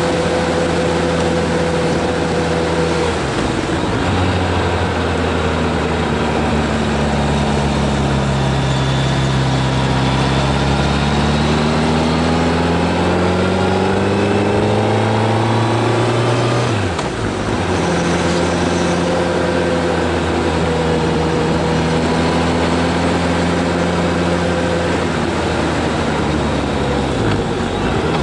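Engine of the filming vehicle pulling uphill, heard on board over a steady rush of wind and road noise. The engine pitch holds steady, rises gradually under acceleration and drops abruptly at gear changes: a few seconds in, just past halfway and again near the end.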